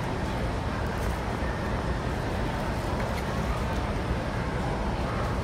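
Steady background din of a large, crowded exhibition hall: a constant low rumble with a murmur of distant activity and no distinct events.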